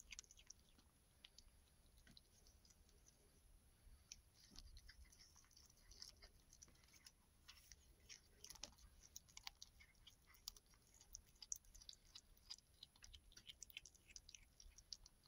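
Faint, irregular wet clicks and crunches of a kitten chewing on a mouse, gnawing through the head; the clicks come thicker from about four seconds in.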